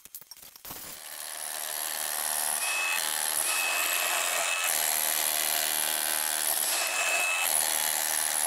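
Rotary hammer with a flat scraper chisel bit running steadily, starting about a second in, as it scrapes wood remnants and old flooring adhesive off the subfloor.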